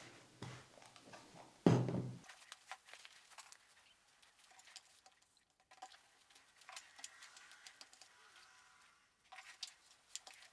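Faint handling sounds of quilt blocks and fabric stars: soft rustling and small taps as the stars are laid on and pressed down with a mini iron, with one louder thump about two seconds in.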